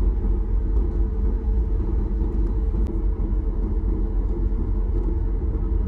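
Steady low rumble of aircraft cabin noise inside a Boeing 737 MAX 8, with no change in level.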